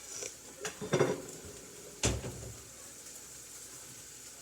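Food sizzling in a frying pan on the stove, with a few knocks of a utensil or pan against the cookware, the loudest about two seconds in.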